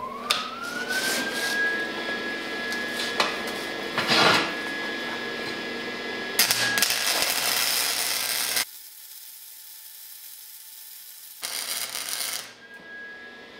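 Lincoln MIG Pack 140 flux-core welder running a bead on straight polarity (electrode negative), as gasless flux-core wire needs: the arc crackles and sizzles with sharp pops under a steady high whine. It cuts off abruptly after about eight and a half seconds, then starts again briefly near the end.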